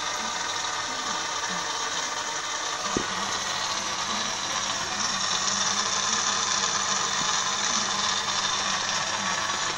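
Sunsun JP-024F internal aquarium filter running underwater, with steady rushing and churning water and a low hum. There is a single click about three seconds in, and the sound gets a little louder from about five seconds on.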